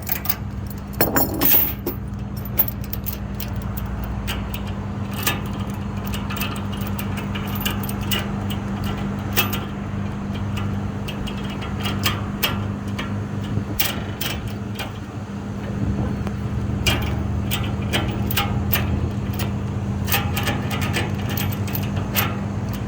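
Metal tie-down chain and hook clinking and clanking in irregular knocks as a chain is hooked over the load, over a steady low engine hum.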